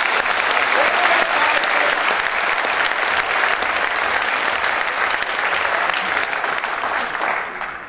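Audience applauding, a dense spread of many hands clapping that dies away near the end.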